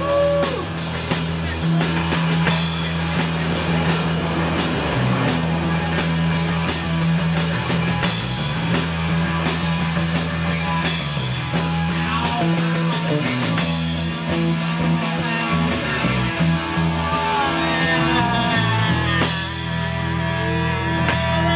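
Live rock band playing: electric guitar, bass guitar and drum kit at a steady, loud level.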